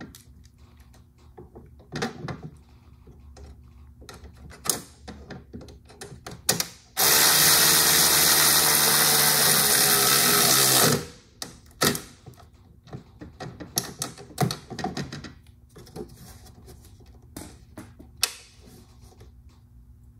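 Cordless ratchet driving a 10 mm nut back onto its stud with a deep socket: the motor runs steadily for about four seconds in the middle, with scattered clicks and taps of the tool and socket being handled before and after.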